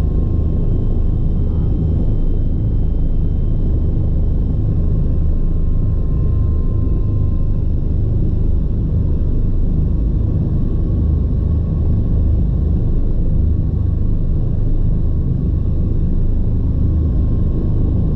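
Bell 429 twin-turbine helicopter running: a steady, loud rumble with a faint high whine above it.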